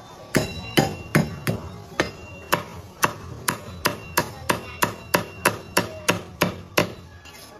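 Meat cleaver chopping a sausage into slices on a thick end-grain wooden block: a steady run of sharp chops, about two or three a second, some with a brief metallic ring. The chopping stops near the end.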